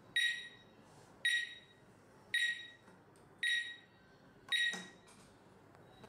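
Visonic wireless alarm panel sounding its exit-delay beeps: five short, identical high beeps about a second apart. They stop near the end as the exit delay runs out and the panel arms in away mode.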